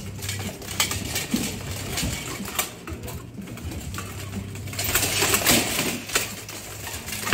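Steel plate armor clinking and rattling as armored fighters move, with scattered metal knocks. About five seconds in it turns into a dense, louder burst of metallic clatter and scraping as two fighters in plate collide and grapple.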